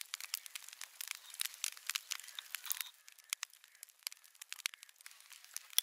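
A fork scraping and peeling the charred, brittle skin off a fire-roasted tomato on a wooden cutting board: a dense run of small crackles and clicks that thins out about three seconds in.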